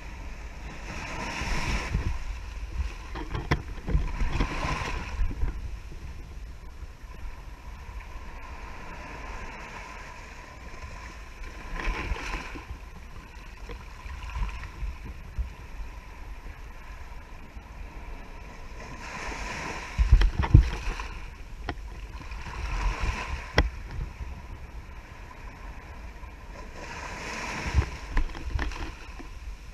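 Small waves surging up the sand and washing over a camera set at the water's edge: a swell of hiss and splash that builds and fades every few seconds, about six times, over a steady low rumble of wind on the microphone.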